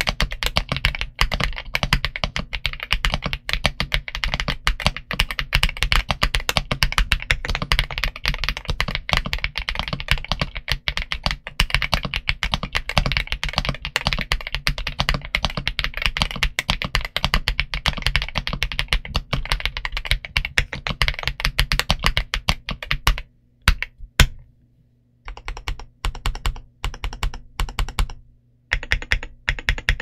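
Royal Kludge R65 mechanical keyboard with RK Cream/Chartreuse linear switches and PBT Cherry-profile keycaps, typed on fast in a dense, continuous run of keystrokes. The typing stops most of the way through, two sharp clacks stand out in the short pause, and then keys are struck with one hand in short, spaced runs.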